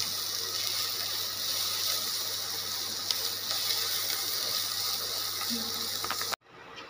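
Chopped onion and spices sizzling steadily in hot oil in a non-stick kadai as they are stirred with a spatula, with a few light scrapes. The sizzle cuts off abruptly about six seconds in.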